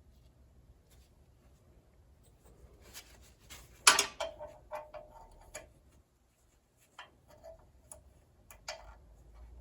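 A wrench clinking and clicking on a muffler bolt of a John Deere L130 lawn tractor. There is a sharp metal clank about four seconds in, then a quick run of clicks with a short ring, and a few more clicks later.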